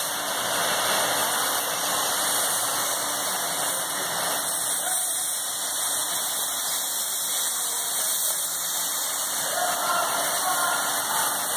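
Air casters under a yacht hull hissing steadily as compressed air escapes beneath them, floating the boat while it is pushed across the floor.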